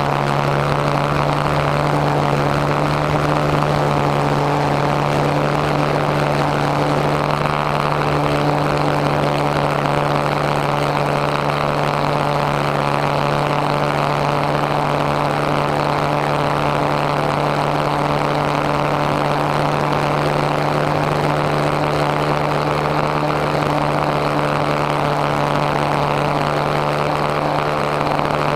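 Motor and propeller of an RC model airplane in flight, heard from a camera on board: a steady drone that holds one pitch, with air rushing past.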